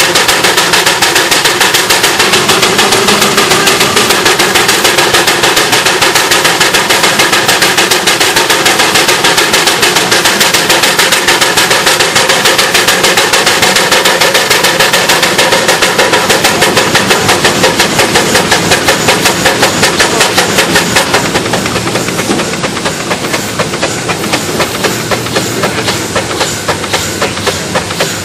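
Steam traction engine running in place, its exhaust chuffing in a fast, even beat of several puffs a second; about three quarters through it turns quieter.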